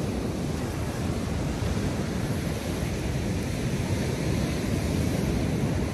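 Steady wind buffeting the microphone, mixed with the wash of breaking ocean surf.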